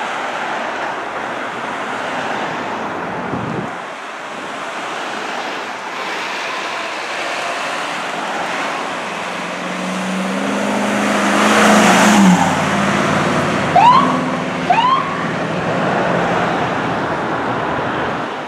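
Fire apparatus passing through city traffic: its engine drone swells and drops in pitch as it goes by, followed by two short rising siren whoops, over steady traffic noise.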